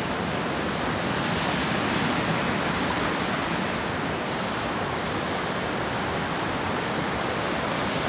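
Waterfall close by: a steady rush of whitewater pouring over a rock ledge.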